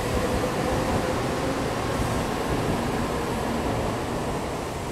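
N700S Shinkansen train pulling out of the station past the platform: a steady rushing rumble of the cars rolling by, growing slightly quieter toward the end as the last car passes.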